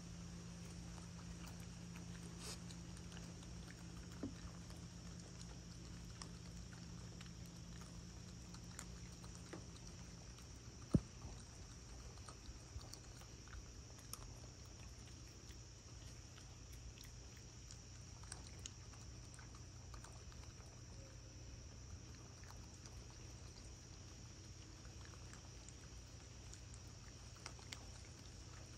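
Raccoon eating dry cat food: faint scattered crunches and small clicks, with one sharper click about eleven seconds in, over a steady low hum and a faint steady high tone.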